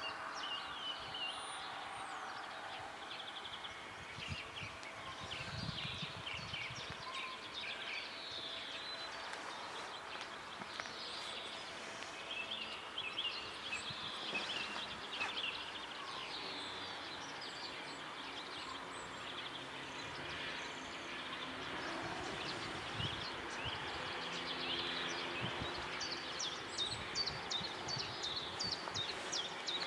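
Songbirds chirping and trilling many times over a steady background hiss.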